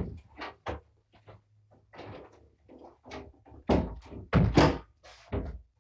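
Kittens romping on a wooden-framed pet hammock: an irregular run of thumps and knocks with rustling, the loudest thumps coming in a cluster during the second half.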